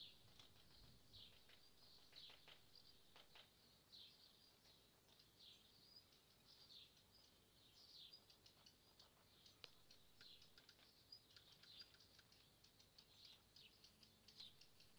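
Faint chirping of small birds, many short calls repeating throughout, with scattered light ticks.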